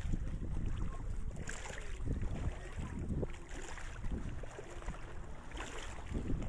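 Wind buffeting the microphone at the edge of shallow sea water, a low uneven rumble with faint water noise.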